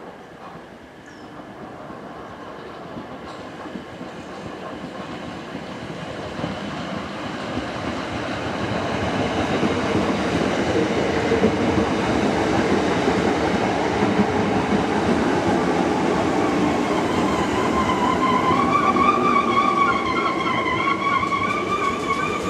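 Class 455 electric multiple unit running in along the platform, its rumble growing steadily louder as it draws alongside. A high, wavering squeal sets in over the last few seconds.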